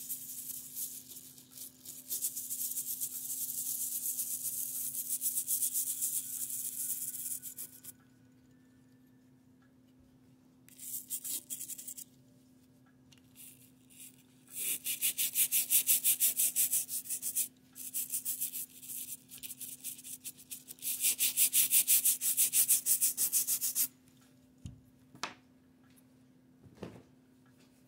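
Rapid back-and-forth scrubbing strokes on a 1941 Argus AA camera as it is cleaned, in several bursts of a few seconds each with short pauses between, and a couple of light knocks near the end.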